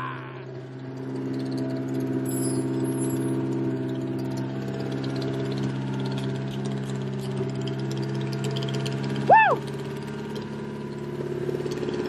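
Freshly built Honda K-series four-cylinder engine idling steadily on its first start, with a lot of clacking that the builders take for valve-train noise. A short shout rises and falls about nine seconds in.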